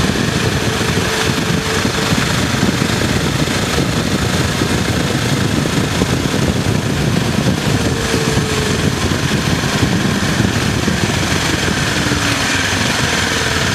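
Motorcycle ridden at road speed: its engine runs steadily under a constant rush of wind on the microphone.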